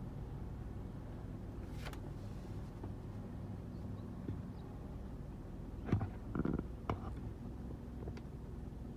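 Steady low hum of a stationary car idling, heard from inside the cabin, with a few faint clicks and a brief muffled rustle about six to seven seconds in.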